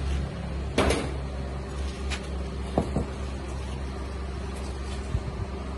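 A steady low machine hum, with a few scattered knocks and clicks, the sharpest about a second in.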